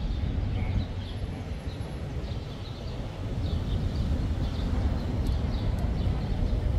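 Outdoor city ambience: a steady low rumble, the loudest part, with small birds chirping over and over through it.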